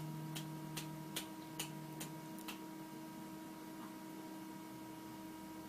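Faint, even ticking, about two and a half ticks a second, that stops about two and a half seconds in, over a steady electrical hum.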